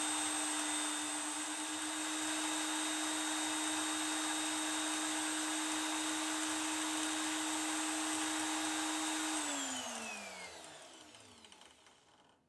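Electric drill mounted in a homemade wooden drill press, running with a steady whine and no change of pitch. About nine seconds in it is switched off and spins down, the whine falling in pitch as it fades.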